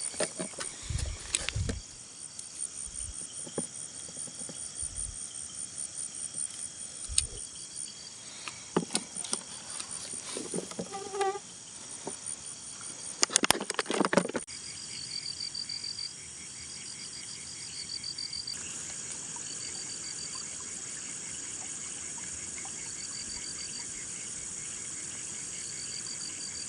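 A night chorus of crickets and other insects, a steady high chirring with repeated pulsed trills. Over it come scattered knocks and rustles in the first half, with the loudest burst of handling clatter about thirteen seconds in.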